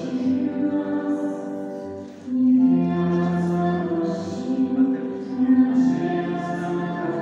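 A choir singing a slow hymn in long held notes, with a short break between phrases about two seconds in.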